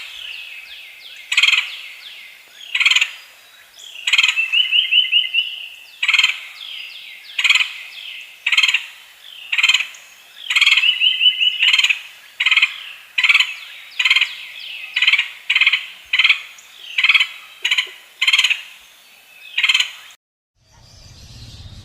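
A fowl calling over and over: sharp, high calls about once a second, mixed with stretches of fast rattling chatter, breaking off shortly before the end.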